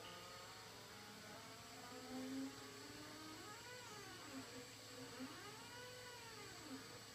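Mr Beam laser cutter's stepper motors whining as the head moves along curved cuts in paper. The pitch rises and falls in repeated arcs as the head speeds up and slows around each curve, over a steady faint hum.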